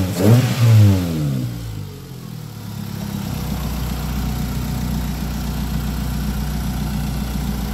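Ford Lynx car engine revved briefly at the start, its pitch falling back over a couple of seconds and settling into a steady idle. It is running again after a crank-no-start fault, traced to corroded terminals in the fuse box that cut power to the main relay.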